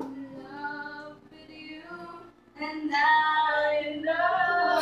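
Young voices, a girl's leading, singing long held notes over strummed acoustic guitar chords; the singing softens and briefly drops away a little after two seconds, then comes back louder.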